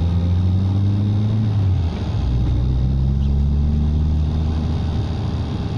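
Proton Waja's four-cylinder engine heard from inside the cabin, pulling at a little over 2,000 rpm. Its note climbs, drops in pitch and level about two seconds in, then climbs again.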